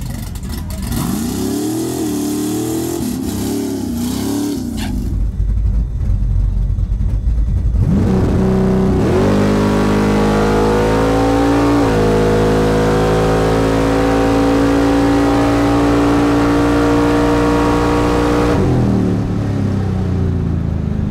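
OBS pickup truck's engine making a drag-strip pass: revved up and down in short blips for a few seconds, then launched about eight seconds in, the revs climbing, a gearshift about twelve seconds in, held at high revs down the track and falling off as the driver lifts near the end.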